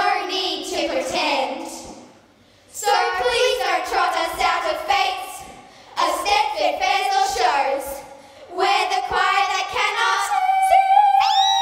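A small group of girls singing together in short phrases with brief pauses between them, holding one long note near the end.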